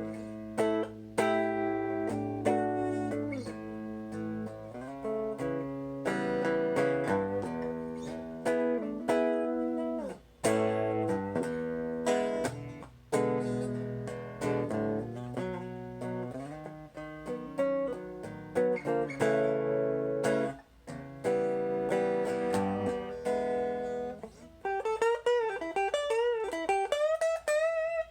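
Guitar played through a Gibson BR-9 amplifier: a run of plucked notes and chords. Near the end the notes waver and bend in pitch.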